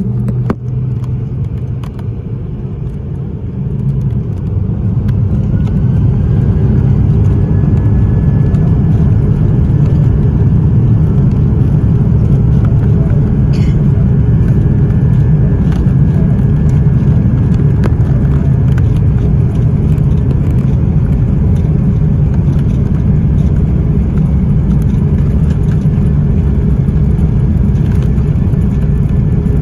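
Airliner's jet engines heard from inside the cabin, spooling up to takeoff thrust about four seconds in with a rising whine. The engines then hold a steady loud rumble through the takeoff roll.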